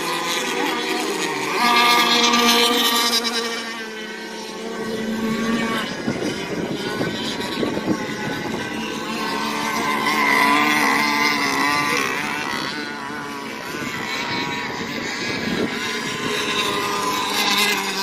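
Radio-controlled racing boats speeding across a lake, their motors running as a whine that rises and falls in pitch and loudness as they pass, loudest about two seconds in and again around ten seconds.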